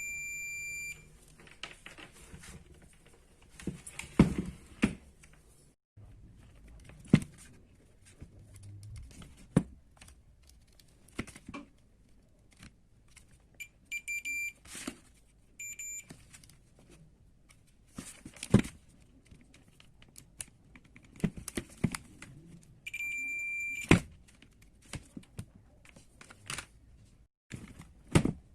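Short high-pitched electronic beeps: one about a second long at the start, a few brief ones midway, and another about a second long near the end. Scattered clicks and knocks of small parts being handled sound in between.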